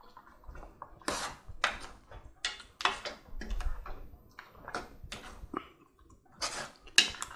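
Metal ladle stirring lamb pieces in thick hariyali sauce, scraping and knocking against the pot in irregular strokes, with the wet squelch of the sauce being turned over.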